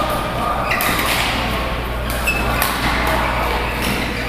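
Badminton racquets striking a shuttlecock during a rally, two sharp hits, with sneakers squeaking on the court floor, echoing in a large sports hall.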